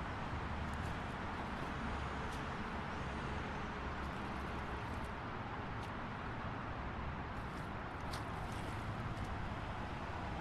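Busy city street traffic: a steady wash of passing cars' engines and tyres over a low rumble, with a few faint short clicks.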